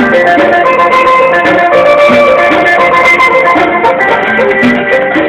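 Instrumental music with plucked strings and a melodic line moving note to note at a steady loud level.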